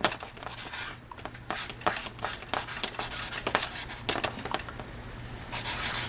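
Marker writing on a flip-chart pad: a quick run of short, scratchy strokes, with a longer rubbing stroke near the end.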